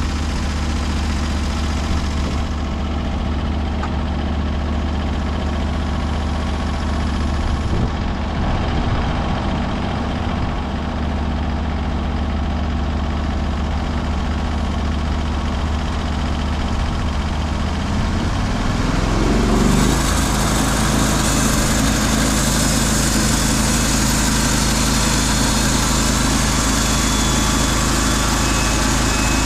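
Portable bandsaw sawmill's gasoline engine running steadily. About twenty seconds in it speeds up, its pitch rising, and a brighter hiss joins it and holds.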